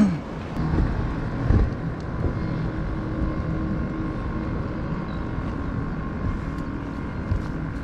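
An engine running steadily as a low drone with a few steady hum tones, with wind buffeting the microphone. A loud thump comes right at the start, with a couple of softer knocks in the next second or two.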